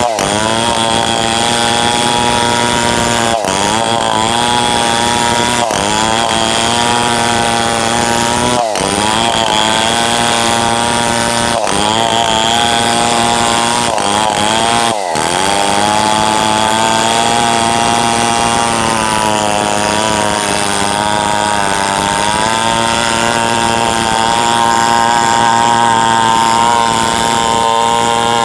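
Tuned-up New West 707 two-stroke chainsaw running at high revs while ripping through wood. Its engine note briefly drops and recovers about seven times in the first fifteen seconds, then holds steady.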